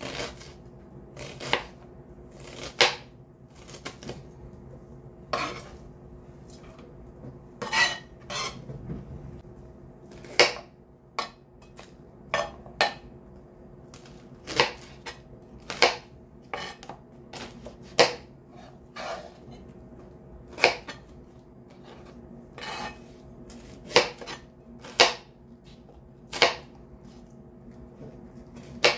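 Kitchen knife knocking on a plastic cutting board as it cuts through onion and Brussels sprouts. The single sharp knocks come unevenly, one every second or two.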